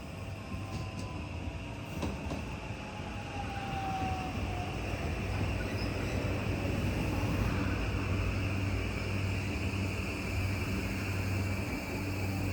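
Electric train moving through the station: a thin whine falls in pitch during the first few seconds, then a steady low running hum grows louder. A single click sounds about two seconds in.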